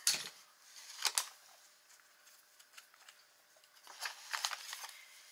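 Paper being handled and cut at a craft desk: a few short, crisp rustles and snips, right at the start, about a second in, and a cluster around four seconds in.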